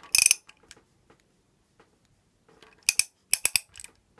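A ratchet wrench clicking in short runs as a rocker arm adjusting nut on a V8's hydraulic-lifter valvetrain is turned down toward zero lash. There is a run of sharp clicks at the start and another about three seconds in.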